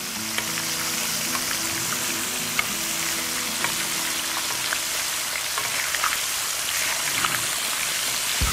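Whole black sea bass deep-frying in peanut oil at about 350°F in a wok: a steady sizzle with scattered pops and crackles as hot oil is ladled over the top of the fish.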